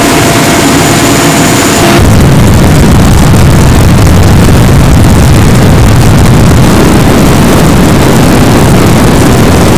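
Mi-8 helicopter in flight heard from inside the cabin: loud, steady twin-turboshaft and rotor noise. For about the first two seconds a high turbine whine sits over it, then it switches abruptly to a heavier low rumble.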